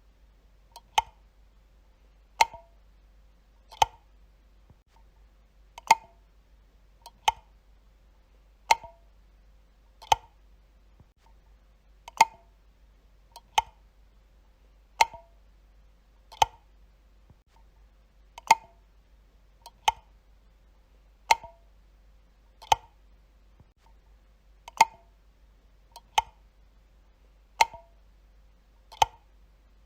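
Light switch being flicked repeatedly: sharp single clicks about one every second and a half, in runs of four with a slightly longer pause between runs. A faint low hum runs underneath.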